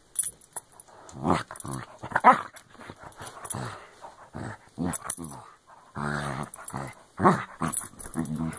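A dog growling and giving short yappy barks in bursts, about seven in all, including one longer low growl near the six-second mark. The dog is mouthing and wrestling a person's hand in rough play.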